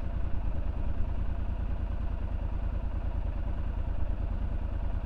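Triumph Scrambler 1200 XE's 1200 cc parallel-twin engine idling steadily.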